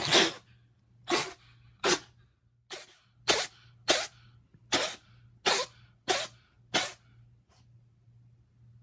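An animal sneezing in a fit: about ten short, sharp sneezes, roughly one every 0.7 s, ending about seven seconds in.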